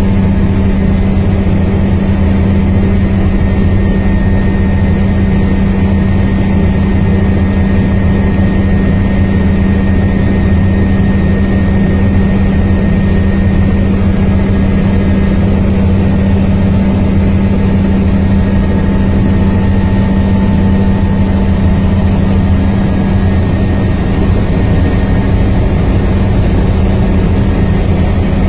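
Helicopter in flight heard from inside the cabin: a loud, steady drone of engine and rotor with a strong low hum that does not change.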